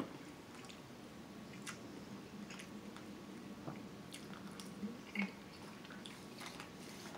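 A person chewing a mouthful of curried food: soft wet mouth clicks and smacks every second or so.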